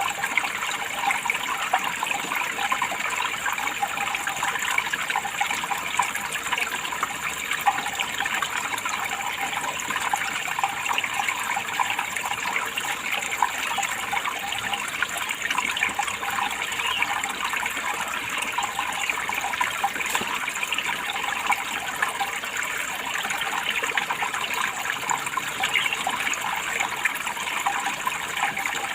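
Water running steadily, a continuous splashing trickle with no change in flow.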